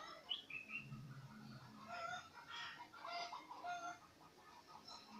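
Chickens clucking faintly, a scattered run of short calls with an occasional falling chirp.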